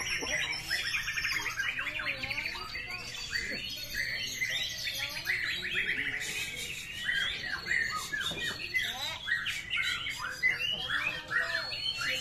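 Several caged white-rumped shamas singing at once, their overlapping songs a dense, unbroken mix of fast rattling trills and gliding whistled phrases.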